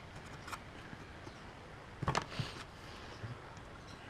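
A few light clicks and knocks of hand work on a small electric fan as a screw is tightened against its rotor shaft, the loudest cluster about two seconds in.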